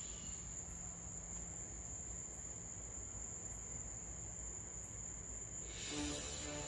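Crickets trilling in one steady, unbroken high-pitched note over faint outdoor hiss. Music comes in near the end.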